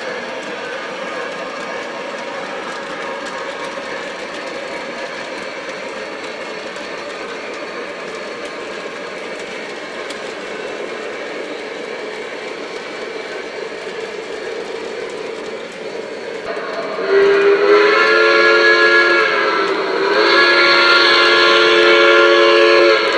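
Lionel Legacy Pennsylvania Railroad B6sb O-scale steam locomotive running steadily on the layout's track. Near the end its sound system blows the steam whistle in two long, loud chord blasts.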